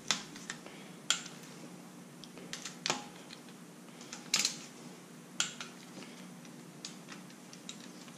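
Torque wrench clicking as LS rocker arm bolts are tightened to 22 ft-lb: five or six sharp single clicks at irregular gaps of about a second, one of them doubled.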